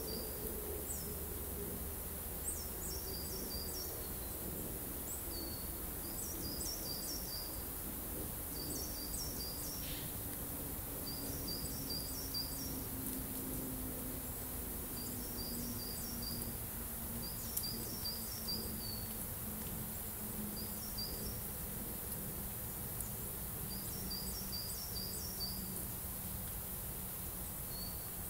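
A small songbird singing short, high phrases of four or five quick notes, repeated every couple of seconds, over a steady low background rumble with a faint hum that slowly falls in pitch.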